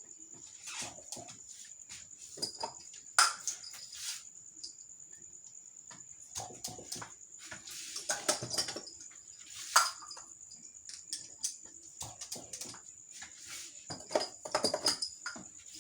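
Crickets trilling steadily, with irregular knocks, clicks and rustling over them; two sharp knocks stand out.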